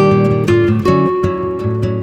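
Background music: plucked acoustic guitar playing a lively run of notes.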